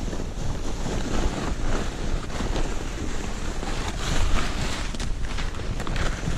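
Continuous rushing hiss of a person butt-sliding down a snowy slope, with wind buffeting the microphone and a few short scrapes about four to six seconds in.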